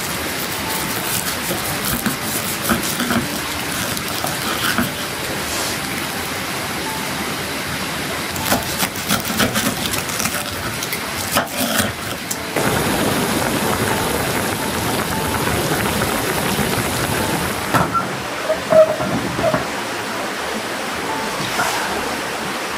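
Steady rain falling on a tent or tarp, with scattered clicks and knocks of things being handled, a cluster of them about halfway through. The rain grows louder for several seconds past the middle, then settles back.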